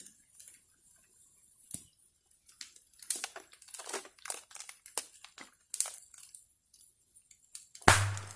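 Wood bonfire crackling: scattered snaps and pops at irregular intervals, with one loud pop near the end.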